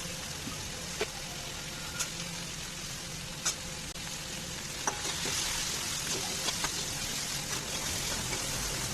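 Food sizzling in hot oil in a pan, with a few sharp clicks of a utensil against the pan; the sizzle grows louder about halfway through.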